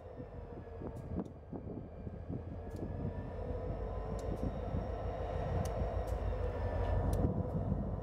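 Diesel-electric locomotive pulling boxcars, its engine drone growing steadily louder as it approaches, with scattered sharp clicks.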